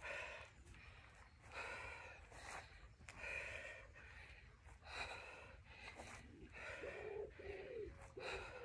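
A woman breathing hard while doing lunges, with a loud breath about every second and a half. A few short pitched sounds come near the end.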